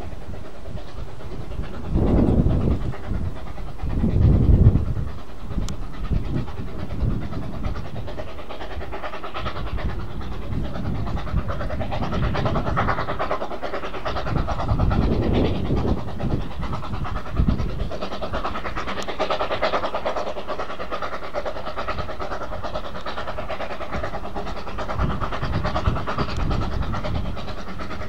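Hudswell Clarke 0-6-0 saddle tank steam locomotive working past with its train of vintage carriages: a steady run of exhaust beats with the carriages rolling along the track. Louder low bursts come about two and four seconds in, and again around fifteen seconds.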